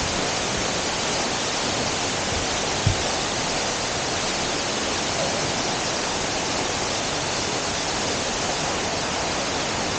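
Steady rush of water from a waterfall and its stream, with a brief low thump about three seconds in.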